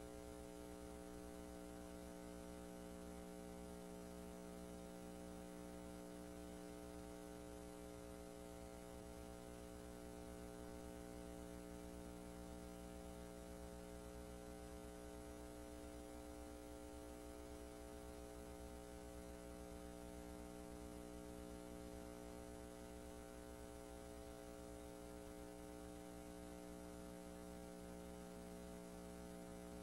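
Faint, steady electrical mains hum with its overtones and a light hiss, unchanging throughout.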